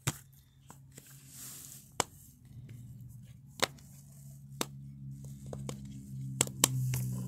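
Sharp plastic clicks from a fidget toy being handled and pressed, about six at irregular intervals, two of them close together near the end. A low steady hum sits under them from a couple of seconds in.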